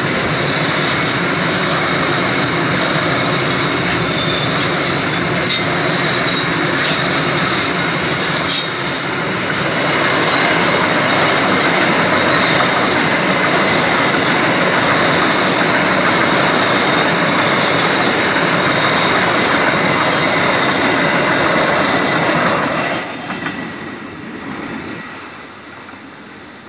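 Freight train of flat wagons rolling past close by, with wheels clacking over rail joints and a steady high wheel squeal. Near the end the last wagon passes and the sound quickly dies away.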